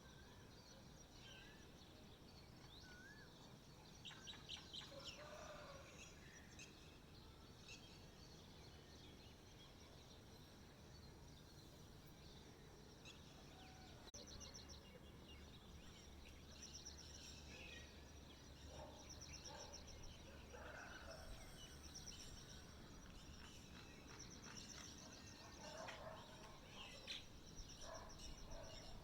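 Faint songbirds chirping, with short whistled glides and rapid high trills repeating through, over a steady background hiss.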